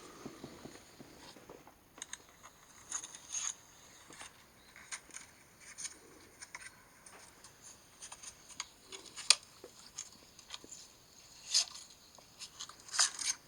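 Irregular scratchy crackling and sharp clicks coming from an iPhone's speaker, a glitch noise the phone kept making by itself for no known reason. The sharpest click comes about nine seconds in.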